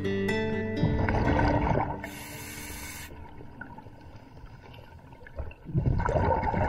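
Scuba diver breathing through a regulator underwater: a rumbling burst of exhaled bubbles about a second in and another near the end, with a quieter stretch between them.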